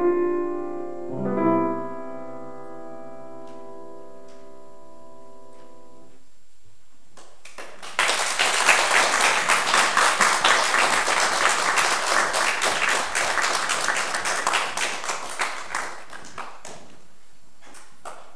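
Grand piano playing the last notes of a piece, its final chord ringing out and fading over about five seconds. Then, about eight seconds in, the audience applauds for about eight seconds, the clapping thinning out toward the end.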